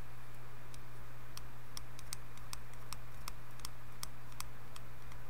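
Metal tip of a soldering iron tapping and scraping along the pins of an SSOP chip on a small circuit board: a run of sharp, light clicks about three a second, over a steady low hum.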